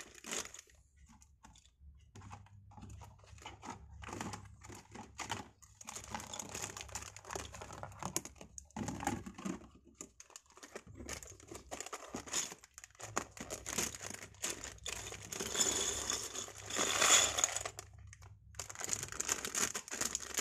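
Plastic packaging bags of Lego pieces crinkling and rustling as they are handled, in irregular bursts, loudest about three quarters of the way through.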